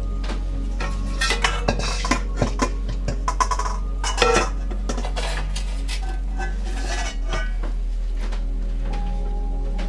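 Stainless steel bowls and pots clinking and knocking against each other with a metallic ring, a quick run of about a dozen hits between about one and four and a half seconds in, the loudest near the end of the run. A steady low hum lies underneath.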